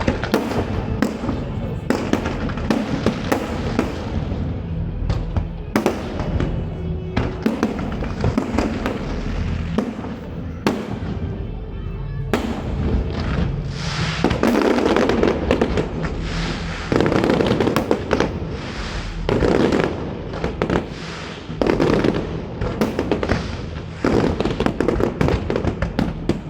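Fireworks display going off: a rapid run of bangs and crackling bursts, growing denser and louder from about halfway through.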